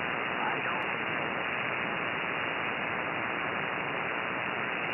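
Shortwave receiver tuned to 14.292 MHz in the 20-metre amateur band, giving steady band noise with no station on frequency. The hiss is even and cut off by the receiver's narrow voice filter.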